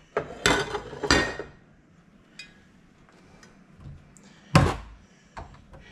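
Kitchen items being handled and set down: a few separate knocks and clatters, the loudest about four and a half seconds in.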